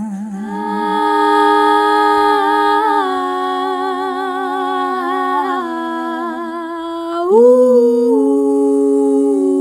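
Multi-tracked female a cappella voices humming and vocalising wordless held notes in layered harmony. The chord shifts every second or two and rises to a higher chord about seven seconds in.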